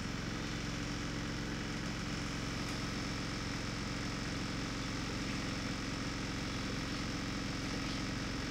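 Bus diesel engine idling steadily while the bus stands still, heard from inside the bus as an even, low hum.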